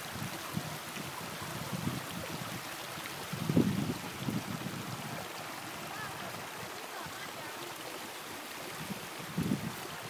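Small snowmelt stream running over rocks, a steady rush of water, with a low gust of wind on the microphone about three and a half seconds in.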